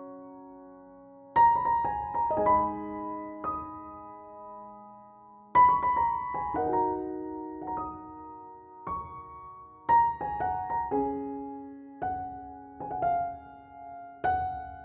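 Slow solo piano music: chords and single notes struck every second or few, each ringing and fading away.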